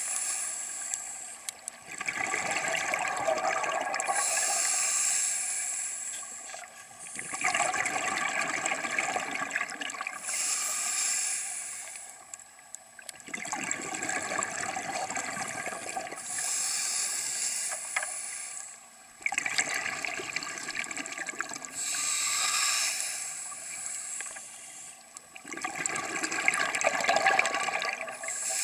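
Scuba diver's breathing through a regulator underwater: hissing inhalations and rushing, gurgling exhaled bubbles in a slow repeating cycle, about five breaths.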